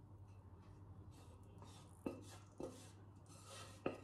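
Quiet kitchen sounds while melted chocolate is poured from a saucepan into a glass mixing bowl: faint rubbing and scraping, and three light clicks of utensils in the second half, over a low steady hum.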